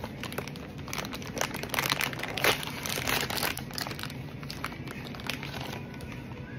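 Packaging crinkling and rustling as it is handled, a dense run of crackles that is busiest in the middle and thins out about four seconds in.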